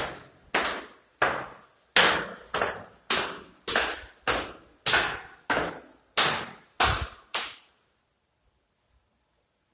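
Footsteps on a hard floor, about one and a half steps a second, each with a short echo, stopping about seven and a half seconds in.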